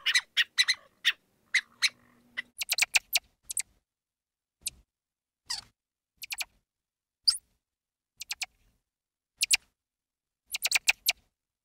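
Mouse squeaking: brief, sharp, high squeaks, singly and in quick runs of two to four, spaced irregularly with short silences between.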